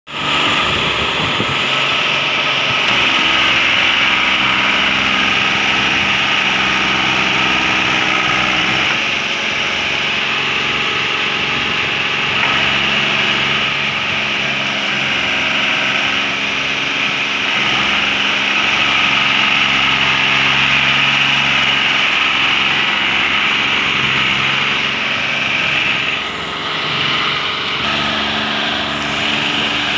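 Mahindra 265 DI tractor's three-cylinder diesel engine running under load, hauling a loaded sugarcane trailer through wet mud. The engine note shifts up and down in pitch several times, with a short drop in level near the end.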